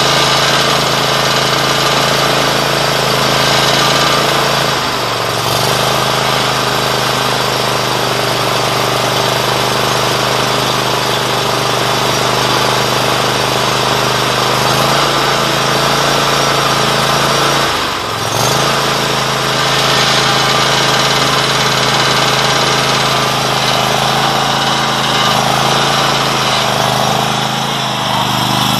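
The 747cc Kohler V-twin engine of a 2016 Bad Boy ZT Elite zero-turn mower, running steadily and loudly just after starting on fresh oil. Its pitch dips briefly about five seconds in and again around eighteen seconds. Near the end the mower drives off.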